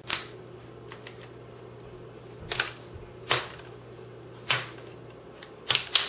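Plastic screen bezel of an Acer Aspire 7740G laptop being pried off by hand, its clips snapping loose in sharp clicks: about six, irregularly spaced, with two close together near the end.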